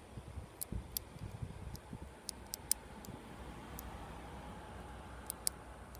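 Lock picking in a Chrysler car door lock cylinder: small, irregular clicks and ticks of the pick and tension tool working inside the lock, over a faint low background hum.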